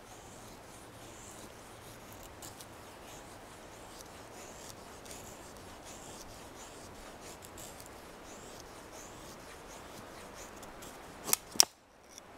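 A Fallkniven A1 knife blade shaving curls off a wooden stick, making repeated scraping strokes as a feather stick is carved. Two short, sharp clicks come near the end.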